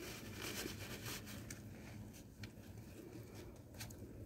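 Quiet eating sounds: faint rustling of a paper napkin and food wrappings, with scattered small clicks over a low steady hum.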